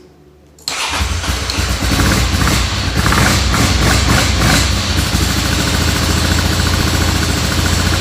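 Ducati Monster V-twin engine catching less than a second in and running steadily. It fires up with the fuel return line clamped ahead of the pressure regulator to build back pressure, which shows the fault was the fuel pressure regulator.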